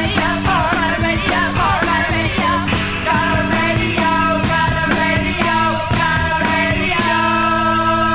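1979 new wave rock song playing: the full band drives along over a steady beat, then about seven seconds in it lands on a long held chord.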